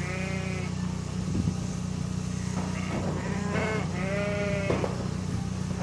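Rambouillet sheep bleating in a pen: one bleat at the start, then several more in quick succession from about three to five seconds in, over a steady low rumble.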